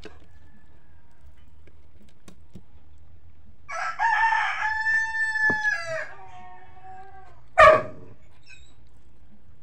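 A rooster crowing once, one long call of about two and a half seconds that falls at its end. About a second later comes a single short, loud burst.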